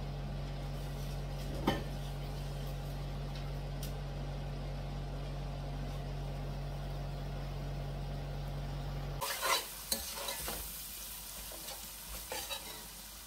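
A large aluminium pot of meat and vegetables cooking on a gas stove under a steady low hum, with one click about two seconds in. About nine seconds in the hum cuts off, and a metal spatula scrapes and knocks against the pot as the mixture is stirred.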